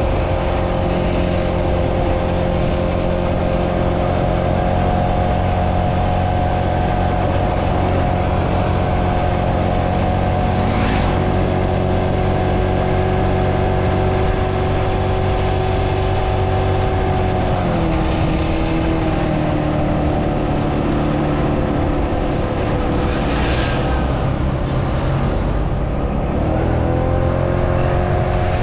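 Italika D125 125cc mini scooter engine running at a steady cruising speed; its pitch drops a little about eighteen seconds in and climbs back near the end.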